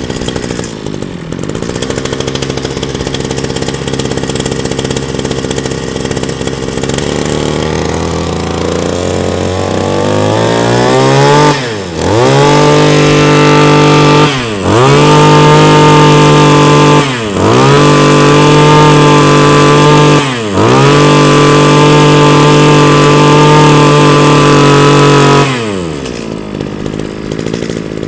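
Kawasaki TG24 brush cutter's 24cc two-stroke engine, test-run after a pull start. It idles, then gradually picks up speed and is held at high revs, with three brief drops when the throttle is let off. Near the end it falls back to idle.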